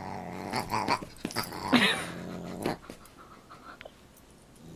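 A dog and a Siamese cat play-fighting, with low growling and a few short cries and pats. The sound dies down about three seconds in.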